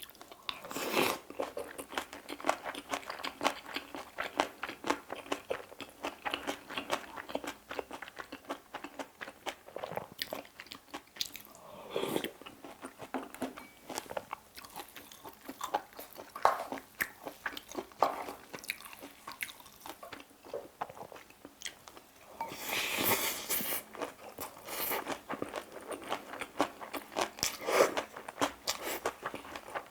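Close-miked chewing and crunching of a mouthful of bibimbap with crisp vegetable toppings: a steady run of small wet crunches, louder in a few bursts.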